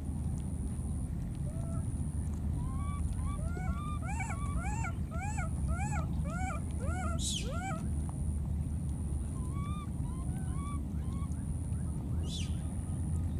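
Baby macaques crying: a run of short, arched squealing calls, about two a second, with a few more scattered calls later.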